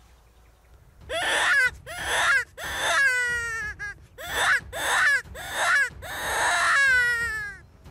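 Roe deer barking: a series of about seven loud, harsh alarm barks, each falling in pitch, the last one drawn out longest.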